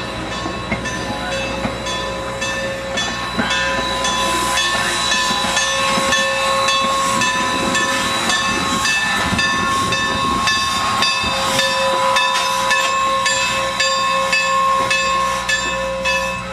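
Steam-hauled passenger train running along the track, heard from aboard: a steady hiss with regular clicking of the wheels and a steady high-pitched ringing tone. It grows a little louder about three seconds in.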